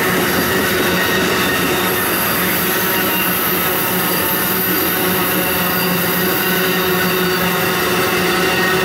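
Amtrak Superliner bilevel passenger cars rolling steadily across a steel trestle bridge, steel wheels running on the rails with a continuous squeal.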